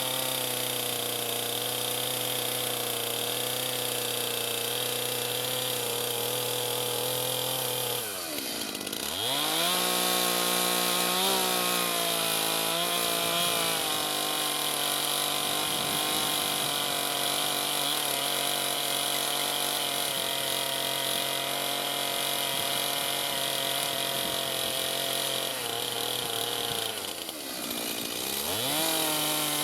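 Chainsaw running at high revs, cutting a log down to its final scribe line. Twice, about eight seconds in and again near the end, the throttle is let off and the revs drop briefly before climbing back up.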